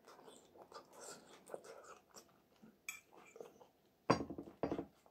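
A person chewing a mouthful of food close to the microphone, faint and wet, with one light clink of cutlery about three seconds in. Near the end the voice sounds twice, briefly.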